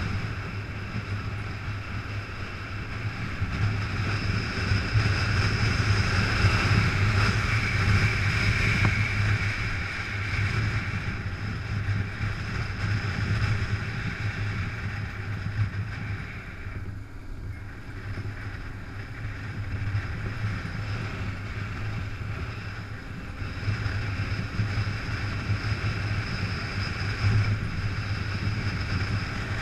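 Motorcycle engine running steadily at road speed, with wind rushing over the bike-mounted action camera. The engine note and the wind ease briefly a little past halfway, then pick up again.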